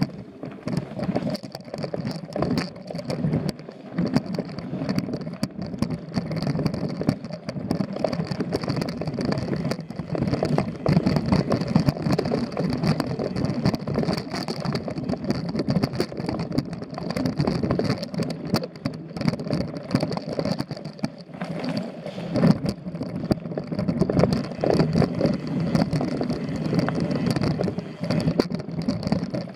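Mountain bike rolling down a rooty dirt singletrack: steady tyre noise with a dense, continuous clatter of knocks and rattles from the bike over roots and stones, picked up by a camera mounted on the bike.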